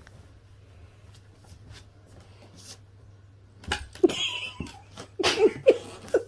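People laughing in short breathy bursts, starting a little past halfway after a quiet stretch with only faint clicks and a low hum.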